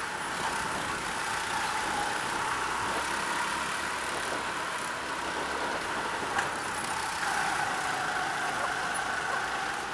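Onboard sound of a go-kart's small Honda engine running at speed, a steady drone that drops and climbs in pitch a couple of times through the corners. A single light knock about six seconds in.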